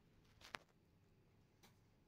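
Near silence: room tone with a faint steady hum, broken by a single light click about half a second in and a softer tick later.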